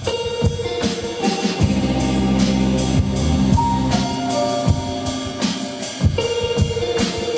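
Live band playing: drum kit, electric bass, acoustic guitar and keyboard. Drum hits run throughout, and held low bass notes come in about a second and a half in.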